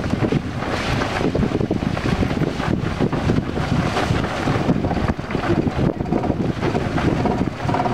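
Wheeled dog-sled cart rolling and rattling over a gravel trail behind a running sled-dog team, with steady wind buffeting on the microphone.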